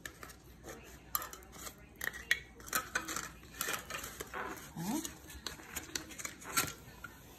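Cardboard tube of a refrigerated cinnamon roll can being peeled and torn open, with a metal utensil scraping and clicking against it in short irregular scrapes.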